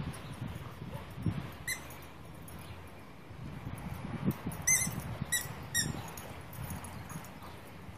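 A dog biting a squeaky toy ball, making short high squeaks: one a little under two seconds in, then four in quick succession between about four and a half and six seconds. Soft rustling of the dog moving on grass runs beneath.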